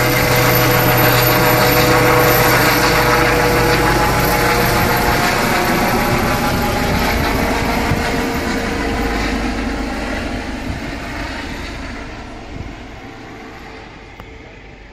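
Helicopter flying overhead and away, its rotor and engine sound steady at first, then fading gradually over the second half with a slight drop in pitch as it moves off.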